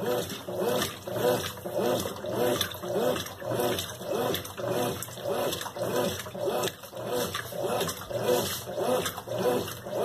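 Consul Maré Super 10 kg top-loading washing machine agitating its load in water, a steady back-and-forth swishing at about one and a half strokes a second.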